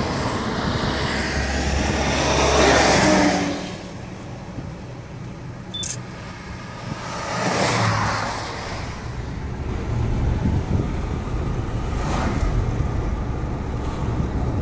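Road and engine noise of a moving car heard from inside the cabin, a steady rumble and rush that swells and fades three times.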